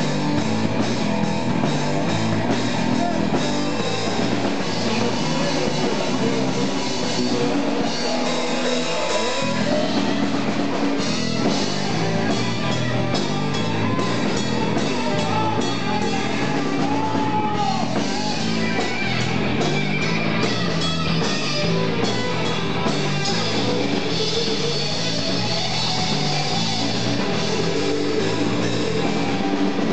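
A live rock band playing loud, with electric guitar and drum kit. The low end drops out for a moment about nine seconds in.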